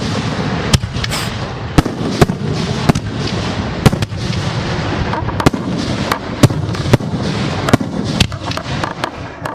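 Professional aerial fireworks display: a dense, continuous wash of crackle and noise from many shells at once, with a dozen or more sharp, loud bangs of shells bursting at irregular intervals.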